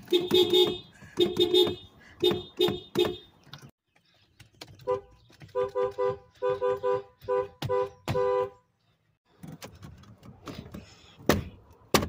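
Car horns sounded in quick short toots. One horn toots about five times. After a short pause a second horn with a different tone toots about eight times. A sharp click comes near the end.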